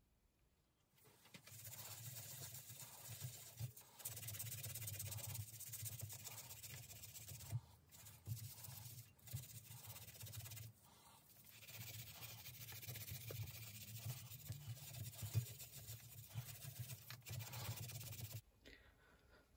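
A rusty chrome-plated steel bicycle rim being scrubbed by hand to take the rust off: a steady scratchy rubbing that starts about a second in, breaks off briefly a few times, and stops shortly before the end.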